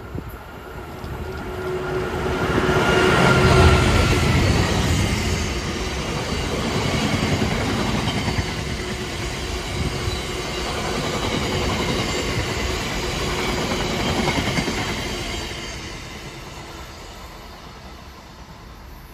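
Freight train passing at speed: the locomotive's engine peaks about three to four seconds in, then a long rake of box wagons rolls by, fading away near the end.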